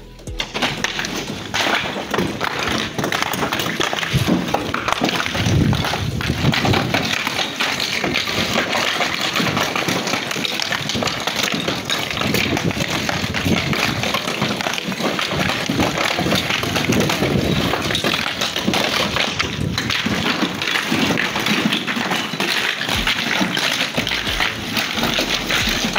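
Flat natural stone pieces clattering and knocking against each other as they are handled on a truck bed and tossed down onto a pile, a dense, continuous clatter of stone on stone.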